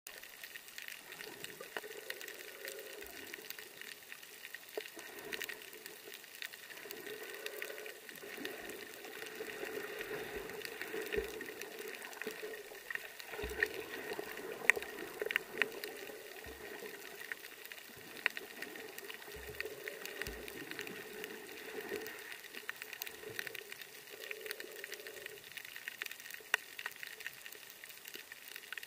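Underwater sound from a camera held beneath the surface on a reef: muffled water swirling and sloshing that swells and fades every few seconds, with scattered sharp clicks.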